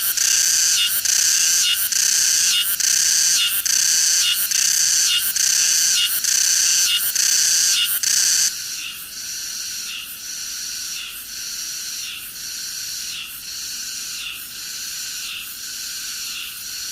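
Cicada singing: a high-pitched, rhythmic call repeating about once a second. About eight and a half seconds in it suddenly becomes quieter but keeps the same rhythm.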